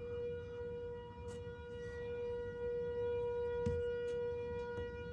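Outdoor tornado warning siren sounding one steady, unwavering tone.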